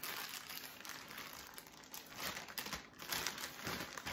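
A thin clear plastic garment bag crinkling and rustling in the hands as a clothing item is unwrapped, with irregular crackles throughout.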